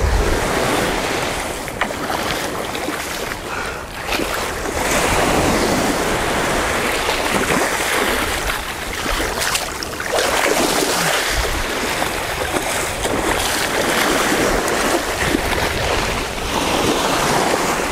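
Shallow surf washing onto a sandy beach, and water splashing as a hooked bull shark thrashes in the wash. Wind rumbles on the microphone throughout.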